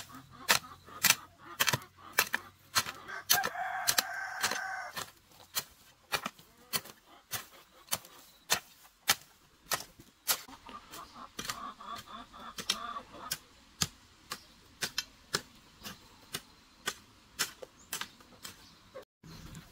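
Hand hoe chopping into weedy soil, a steady run of sharp strikes about two a second. Hens cluck twice, once near the start and again around the middle.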